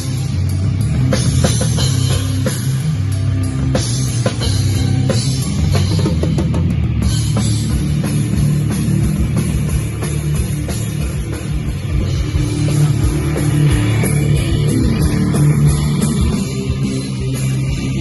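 Rock band playing live at full volume: a pounding drum kit with crashing cymbals under electric guitars.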